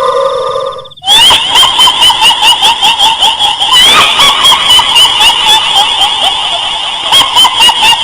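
A shrill, rapidly pulsing cackling laugh, the kuntilanak ghost's laugh of Indonesian folklore, at about three or four cackles a second. It starts about a second in, just after a steady held tone cuts off.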